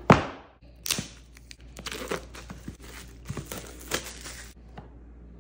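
Clear plastic shrink wrap crinkling and tearing as it is pulled off a phone's retail box, in a run of sharp crackles, the loudest right at the start, that stop about four and a half seconds in.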